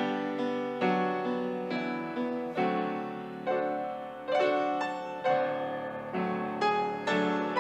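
Solo piano playing slow, sustained chords, a new chord struck about once a second and left to ring and fade.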